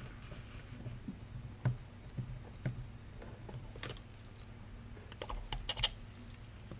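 Light clicks and taps of a screwdriver working the Phillips screws on an outboard carburetor and of small metal parts handled on a workbench. They come in scattered, with a quick run of sharper clicks about five seconds in.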